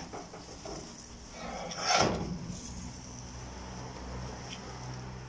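Steel grill grate of a charcoal barbecue being dragged and lifted off the firebox, with one loud metallic scrape and clatter about two seconds in.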